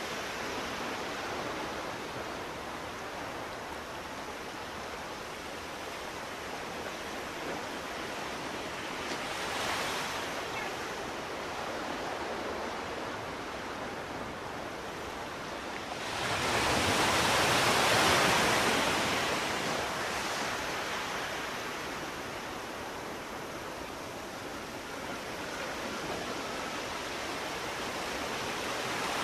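Ocean waves on a shore: a steady wash of surf, with one much louder wave breaking a little past halfway and slowly fading, and smaller swells a third of the way in and at the end.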